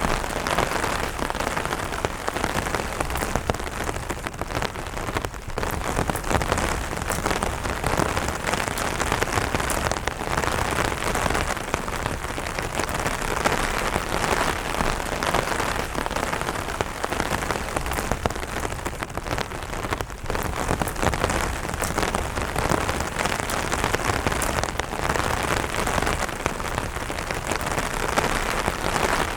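Light rain falling on an umbrella canopy: a steady, dense patter of many small drops striking the fabric.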